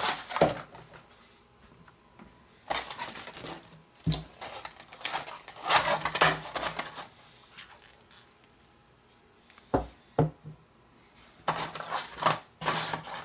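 Handling noises in scattered bursts, with a few sharp knocks: plastic twisty puzzles and their packaging being taken out and set down on a table.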